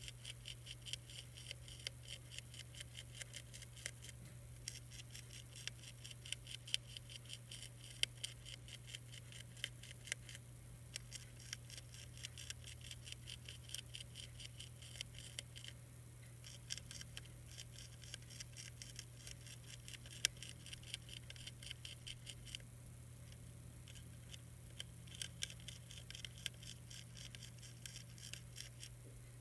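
Monarch caterpillar chewing a milkweed leaf: a rapid train of tiny crisp clicks as its jaws bite through the leaf edge, in runs of several seconds broken by brief pauses. A steady low hum runs underneath.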